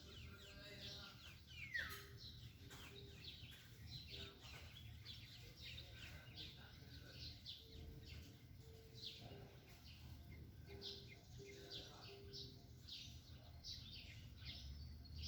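Faint chirping of several small birds: many short falling chirps, several a second, with a longer falling call about two seconds in, over a low steady hum.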